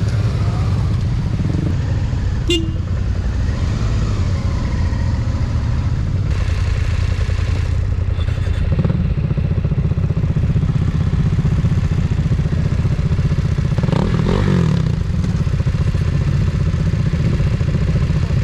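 Motorcycle engine running steadily at low speed on an off-road trail. There is a brief sharp high sound about two and a half seconds in.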